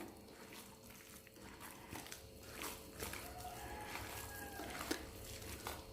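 Faint wet squelching and soft irregular clicks of a minced chicken and ground masala mixture with egg being mixed together.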